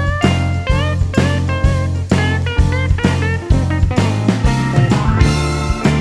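Background music: guitar with a drum kit, a steady beat of about two to three strokes a second over a held bass, with sliding guitar notes.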